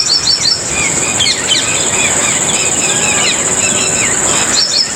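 Small birds chirping in quick, short calls over a steady high-pitched insect drone.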